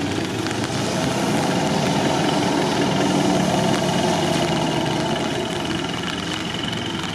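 Off-road 4x4 engines running steadily under load while a stuck vehicle on large mud tyres is towed out of a muddy rut on a strap.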